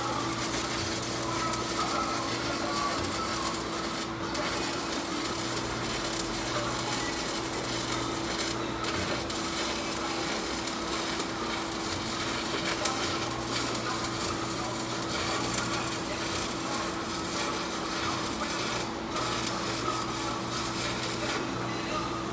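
Electric arc welding on a steel dump truck bed: a steady crackling sizzle from the arc, broken by short pauses a few times and stopping near the end, with a steady hum underneath.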